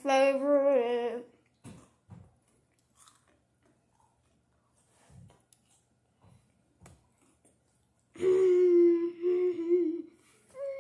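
A girl humming with her mouth full: a short wavering hum at the start and a longer, held hum about eight seconds in. Faint soft chewing sounds from a Ferrero Rocher chocolate come in between.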